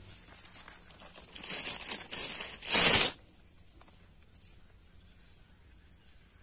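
Rustling and scraping of cloth and hands against a chest-mounted camera's microphone. It builds over a second or two to a loud scrape that cuts off suddenly about three seconds in.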